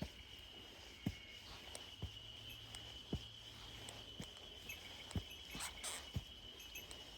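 Walking footsteps, one soft low thump about every second, over a steady high insect trill, like a cricket's, that does not stop.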